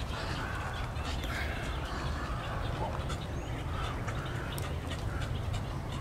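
Wading birds calling at a nesting colony: short, wavering calls and scattered clicks over a steady low rumble.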